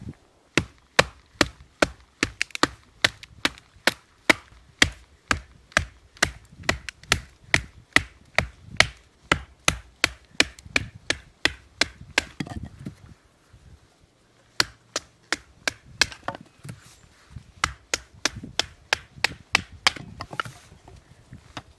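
Firewood being chopped, with sharp, quick strikes of about two a second. The strikes stop for about two seconds a little past the middle, then carry on.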